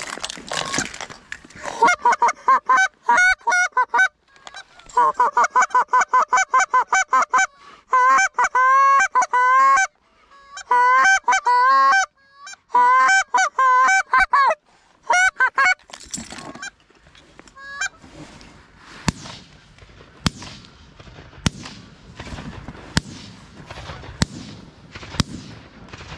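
Loud runs of Canada goose honks and clucks in quick succession, several calls a second, broken by short pauses, until about 15 seconds in. After that the honking stops, leaving a faint hiss with sharp ticks about once a second.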